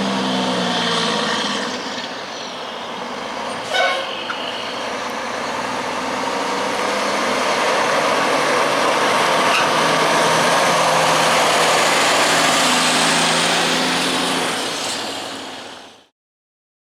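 Heavy truck engine running as a truck passes, growing to its loudest about ten to twelve seconds in and then fading away. There is a brief sharp burst about four seconds in, and the sound cuts off suddenly near the end.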